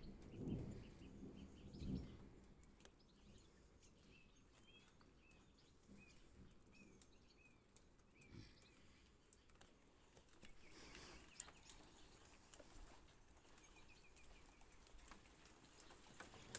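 Faint outdoor ambience: a small bird gives a run of short, repeated chirps for a few seconds. There are two brief low rumbles near the start and scattered light ticks.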